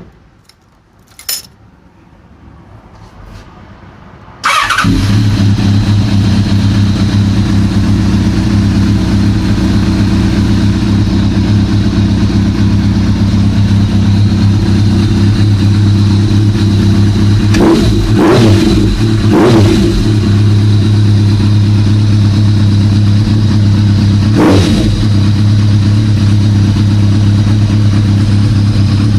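Kawasaki ZRX1200S inline-four motorcycle engine with a one-off titanium silencer being started. A click, then a couple of seconds of starter cranking, and it catches about four and a half seconds in and idles steadily and loudly through the exhaust.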